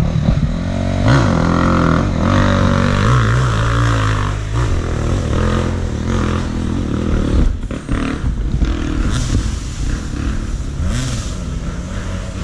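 Enduro dirt bike engine revving up and down hard for the first few seconds, then running lower and less evenly, with knocks and rattles as the bike rides a bumpy forest trail.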